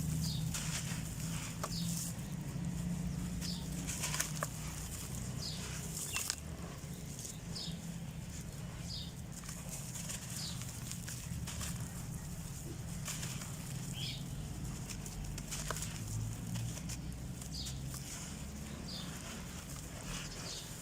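Dried red dirt shapes crumbling, with a sharp crunch every second or two over a steady low hum.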